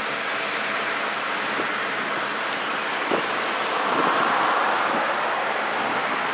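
Freight train led by diesel locomotives rolling slowly: a steady rushing noise, a little louder about four seconds in, with a couple of faint knocks around three and four seconds in.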